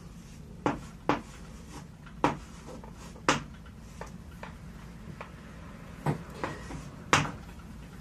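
Chalk writing on a blackboard: a series of sharp taps and short scrapes as the chalk strikes the board, some louder, spaced irregularly, roughly one a second.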